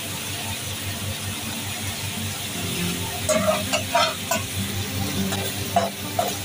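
Chicken tawa piece sizzling in its masala gravy on a large flat iron tawa. From about three seconds in, a spatula scrapes and clicks against the tawa as the dish is stirred.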